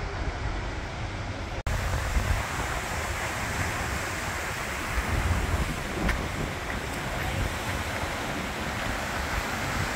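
Steady rushing roar of the Seljalandsfoss waterfall, with wind buffeting the microphone in low rumbles. The sound cuts out for an instant about one and a half seconds in.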